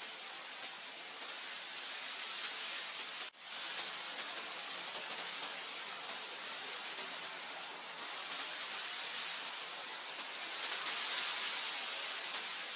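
Wind blowing over grassland, a steady even rush that swells and eases slowly and is loudest near the end. About three seconds in it drops out for a split second.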